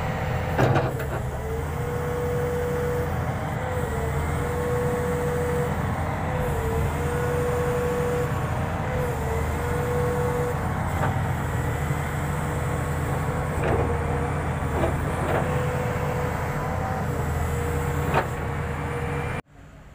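Komatsu PC400-8 excavator's six-cylinder diesel engine running, with a steady whine over it that dips in pitch several times as the arm and bucket are worked. A few sharp knocks, the loudest about a second in and near the end.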